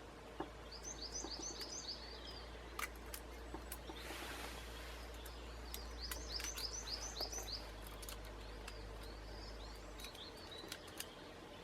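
A songbird singing: short phrases of quick, repeated, falling high notes, about a second in and again around six seconds. A few light clicks come in between.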